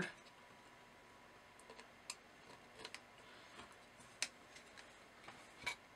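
Faint, scattered small clicks and taps of a plastic battery holder and a circuit board being handled as the holder's leads are fitted through the board, about five light ticks spread over several seconds.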